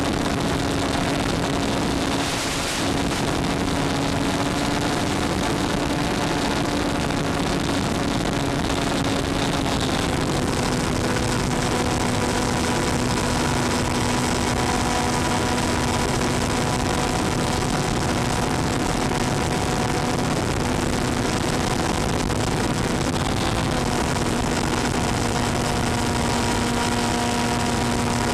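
Electric motor and propeller of an FPV model aircraft running steadily over a constant hiss. The hum drops slightly in pitch about ten seconds in as the throttle is eased and the current draw falls.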